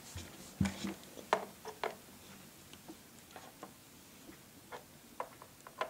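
Light, irregular clicks and taps of small plastic toy figures being picked up and set down on a wooden tabletop.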